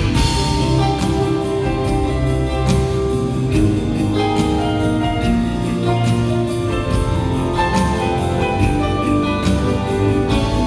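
Live band music with no singing: a soft rock instrumental passage with an electric guitar played over a drum kit keeping a steady beat.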